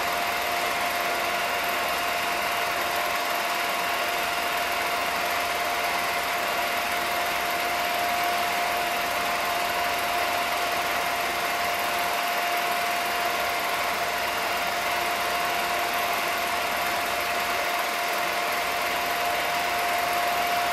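Home-movie film projector running: a steady whirring noise with a constant mid-pitched hum.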